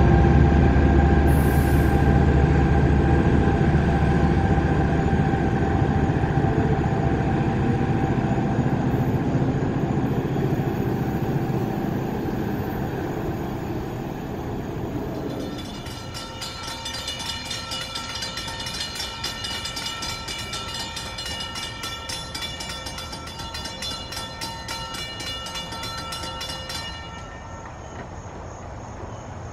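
Diesel engine of a departing Bombardier ALP-45DP dual-mode locomotive running, fading as the train pulls away. About halfway through, a grade-crossing warning bell rings rapidly for about ten seconds and stops shortly before the end.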